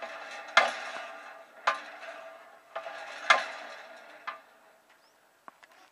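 A village hand pump being worked by its handle: metal clanks about once a second, each one ringing on, then fading out near the end. The pump is dry and gives no water however hard it is worked.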